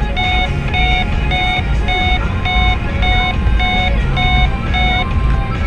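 Electronic beeper in a car sounding short, evenly spaced beeps about two a second, which stop about five seconds in, over the low rumble of the car driving on a wet road.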